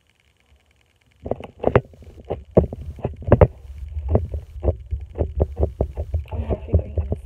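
Butter slime being stretched and squished in the hands: an irregular run of short wet clicks and squelches, several a second, starting about a second in over a low rumble.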